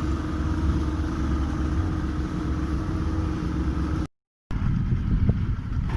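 A boat engine running steadily with a low rumble and a steady hum. About four seconds in the sound cuts out for a moment, then comes back as a rougher rumble with scattered knocks.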